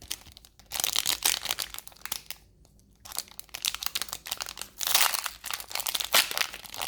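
Foil wrapper of a Pokémon card booster pack crinkling and tearing as it is opened by hand, in two spells with a short pause about two and a half seconds in.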